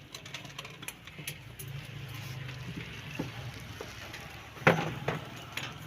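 Knocks and clicks of a garment steamer's parts and packaging being handled, with a loud knock a little under five seconds in, over a low hum in the first half.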